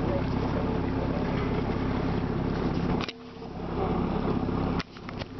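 Boat engine running steadily under way, mixed with wind and water noise. The sound dips sharply twice, about three seconds in and again near the end.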